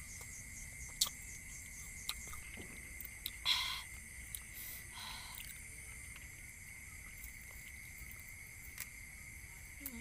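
Steady chorus of night insects, crickets trilling at one high pitch throughout. A few small clicks sound over it, and a short burst of noise about three and a half seconds in is the loudest moment.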